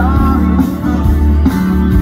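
Live band playing loudly through a PA system: acoustic guitar, electric guitars and drums.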